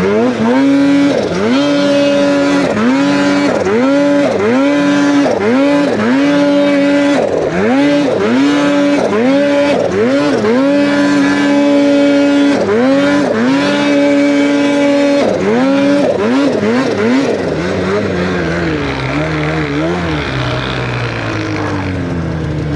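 Snowmobile two-stroke engine, a 2023 Polaris Khaos Boost with an aftermarket SLP exhaust can, revved in quick throttle blips about once a second: the pitch drops and climbs back, holds high for a second or two at a time, and settles lower near the end.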